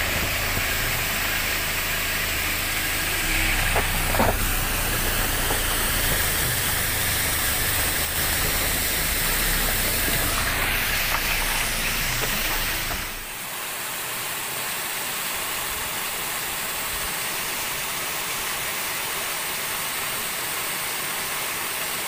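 Waterfall cascading down rock steps: a steady rushing hiss of falling water. About 13 seconds in it becomes a little quieter and loses its deep rumble.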